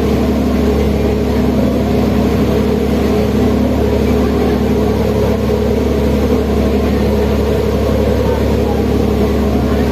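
Boat engine running steadily: a constant drone that holds the same pitch throughout.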